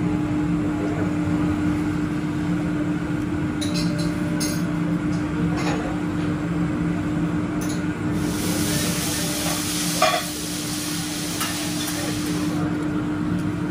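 A hissing sizzle as liquid from a squeeze bottle hits the hot teppanyaki griddle, starting about eight seconds in and lasting about four seconds, with a sharp knock partway through. Before it, a steady low hum and a few light utensil clicks.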